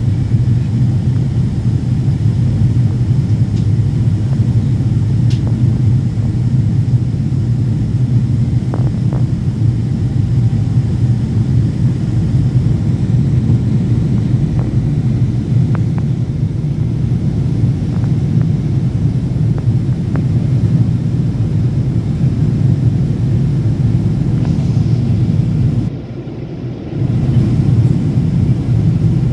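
Cabin noise of a Boeing 777-200ER on descent: a loud, steady low rumble of engines and airflow heard from a window seat by the wing. Near the end the sound dips briefly, then returns.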